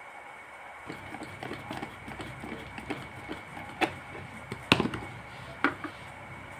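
Screwdriver driving screws into a plastic fan neck housing, with the housing handled: a run of small scratchy ticks, then three sharp plastic knocks, the loudest about halfway through.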